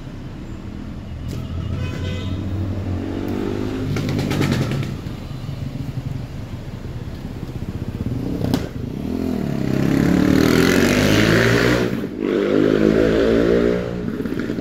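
Road traffic: the engines of passing vehicles accelerating through a busy intersection, their pitch rising and falling several times. The loudest pass comes about ten seconds in, with a single sharp click shortly before it.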